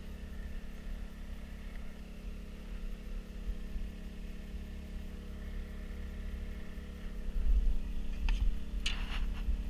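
Steady motor hum aboard a bowfishing boat under way, with a low rumble that swells slightly near the end. A few short knocks come late on.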